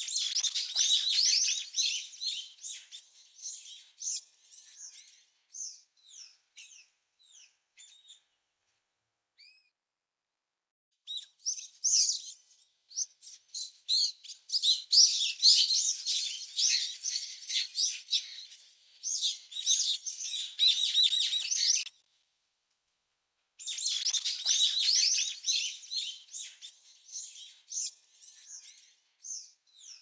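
Brown-eared bulbul nestlings begging for food: a dense chorus of rapid, high chirps. It comes in three bouts, loudest in the middle, and each bout starts and stops abruptly, with brief silences between them.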